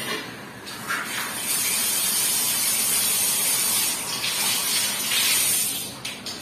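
Water running hard from a bathroom wall mixer's outlet and splashing on the tiled floor, a steady hiss that builds about a second in and drops away near the end as the valve is closed.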